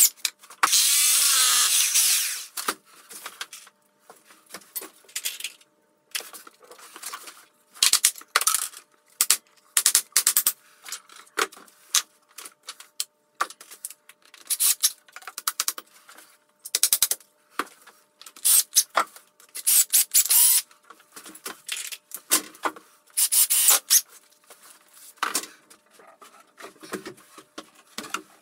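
Cordless drill run in short bursts against a plywood wall rail, the longest of about two seconds near the start, with shorter runs later. Between the runs come short clicks and knocks of the drill and level being handled on the rail.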